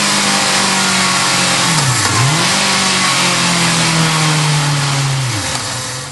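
Honda CB650F's inline-four engine running on a dyno through a Mivv Double Gun twin-tube slip-on silencer. The revs drop and climb back quickly twice, hold steady high for a few seconds, then fall away and fade near the end.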